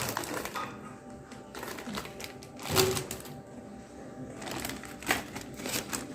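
Small jewellery pieces and their packaging being handled: a few sharp clicks and rustles, the loudest about three seconds in, over faint background music.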